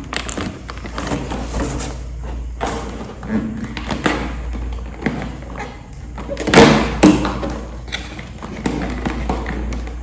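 Handling and prying open a small cardboard door on a makeup advent calendar: a run of taps, knocks and thumps from fingers and the stiff box. The loudest burst comes about six and a half seconds in.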